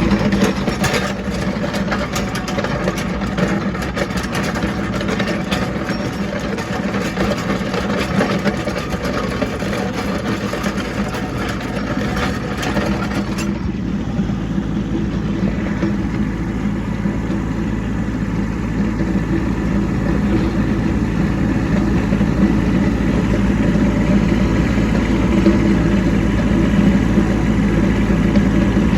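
Kubota B2601 compact tractor's three-cylinder diesel engine running steadily while the tractor works. Sharp clicks and scraping sound over it through the first half, then stop suddenly about halfway through.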